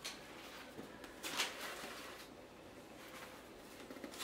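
Paper packing wrapped around potted plants rustling and a cardboard box being shifted as they are handled, with one brief louder rustle about a second in.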